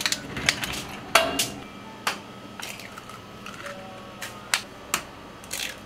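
Clear plastic egg carton being handled and opened, its thin plastic crackling and clicking in a series of sharp irregular snaps, with an occasional knock against stainless steel bowls.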